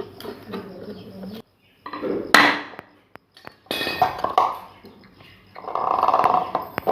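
Metal parts of a ceiling fan being handled during reassembly: scattered clinks and knocks, one sharp loud strike about halfway through, and a longer steady scraping noise near the end.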